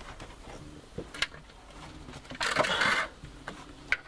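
Caver working through a tight rock squeeze: a couple of light knocks about a second in, then a brief scraping rustle of a caving suit against rock, and a sharp click near the end.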